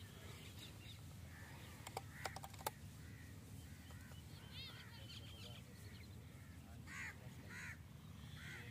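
Faint birds calling in the distance: short, harsh arched calls midway and again about seven seconds in, over a low steady background hum. A few soft clicks come about two seconds in.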